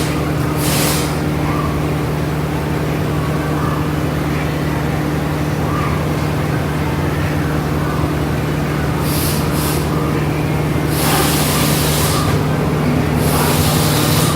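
Land Rover LR2 engine idling steadily, its exhaust leaking from a cracked front muffler. Several short bursts of hissing come in, once about a second in and again several times from about nine seconds on.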